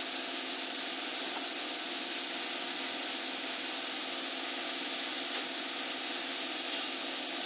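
Steady hum and hiss of background noise, with no change through the whole stretch.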